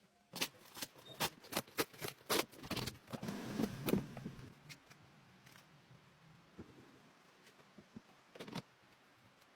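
A quick run of sharp knocks and clicks, about two or three a second for the first few seconds, then a few scattered clicks and a close pair near the end.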